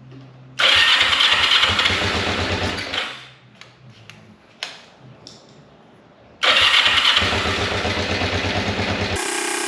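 Kawasaki 454 LTD parallel-twin engine being started: two bursts of about two and a half seconds each of cranking and sputtering, with a few clicks in the quiet between them. Near the end it is suddenly heard running steadily.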